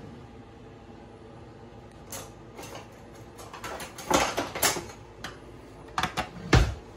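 Metal kitchen utensils clicking and clattering as a kitchen drawer is rummaged through, busiest about four seconds in, followed by two sharp knocks near the end, the second a heavier thump.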